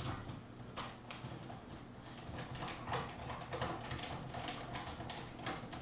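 Faint, irregular clicks and light scrapes of a hand working on the sheet-metal back cover of a Corvette digital instrument cluster as it is fitted, with the clicks coming more often from about halfway through.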